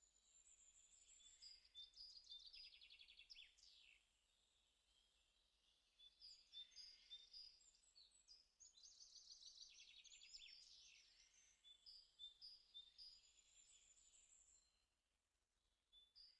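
Faint birdsong: phrases of high chirps and rapid trills, with short pauses between them.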